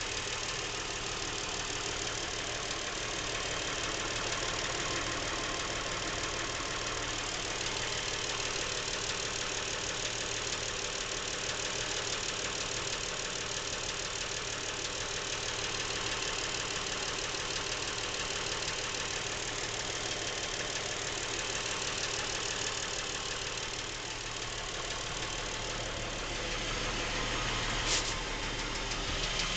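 Lincoln MKX's 3.7-litre V6 idling with a rapid knocking from the back of the engine, a noise the owner says has been there since new and is getting worse, which the dealer calls normal. A single sharp click near the end.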